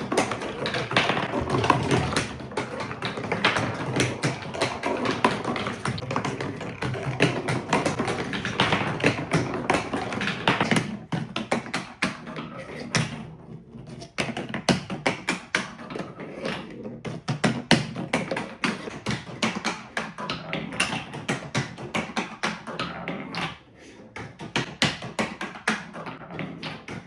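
Marbles rolling and clattering down a TrixTrack marble-run course, a dense stream of clicks and taps as they hit and run along the track. The clatter is thick at first, thins out about halfway through, and drops away briefly twice.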